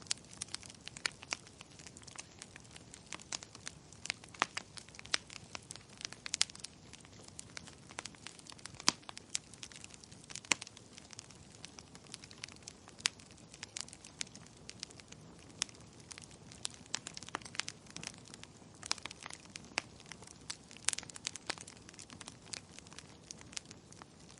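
Wood fire crackling in a fireplace: irregular sharp pops and snaps over a low steady hiss, with a few louder pops.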